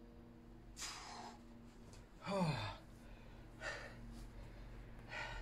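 A man breathing hard from exertion at the end of a set of leg lifts: four heavy exhales about a second and a half apart, the loudest, about two seconds in, a voiced groan that falls in pitch.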